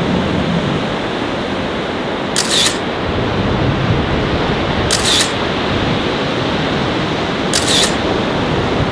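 A camera shutter clicking three times, about two and a half seconds apart, over a steady rush of breaking surf.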